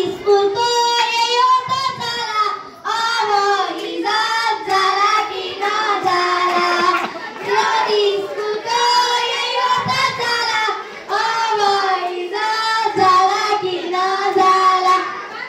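Girls singing a Nepali Bhailo folk song together into a microphone, one phrase after another with short breaths between.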